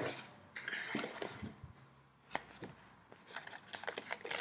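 Scattered light clicks, taps and rustling of a plastic cutting mat and thin cardstock being handled after a finished draw-and-cut job, with a short papery rustle about half a second in and more clicking near the end.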